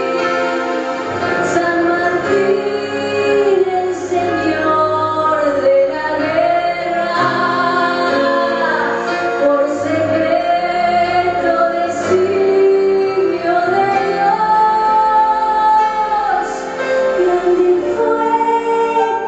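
A woman singing a slow song with a live band of keyboard, electric guitar and drums, holding long notes that glide between pitches.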